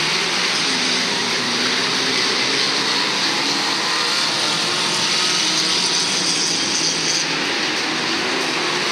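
Many stock-car engines running at once as a pack races round an oval track, a steady, noisy blend of engines with no single car standing out.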